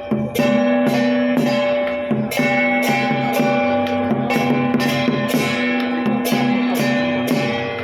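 Music with a steady beat of sharp percussion strokes about twice a second over held melody notes.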